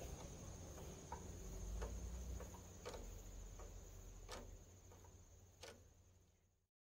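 Crickets trilling in one steady high tone, with a few faint, irregular light clicks over a low background rumble; the sound cuts off near the end.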